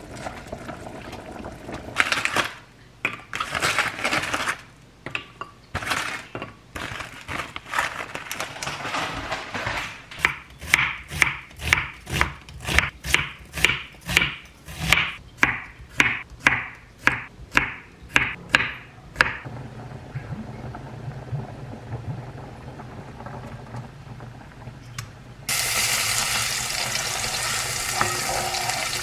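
A chef's knife slicing an onion on a wooden cutting board: a steady run of about sixteen chops, nearly two a second. Near the end, sliced garlic starts sizzling in hot olive oil in a pan with a steady frying hiss.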